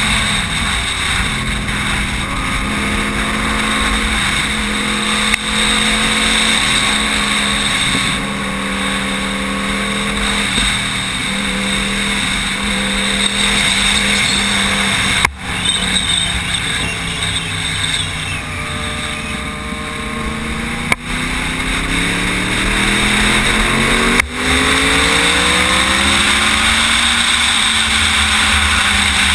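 Sportbike engine running at speed on track with rushing wind noise, its pitch stepping and shifting as the throttle changes. The sound dips for an instant a few times, and over the last several seconds the engine note climbs steadily, then falls near the end.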